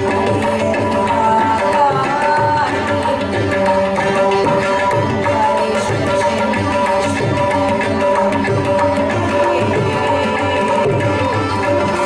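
A woman singing a devotional song with hand-drum accompaniment, the drum keeping a steady rhythm under her voice.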